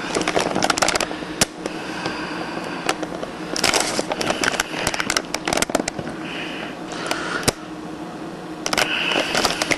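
Close-up handling noise: many small clicks, knocks and rustles of small toys and props being moved about by hand.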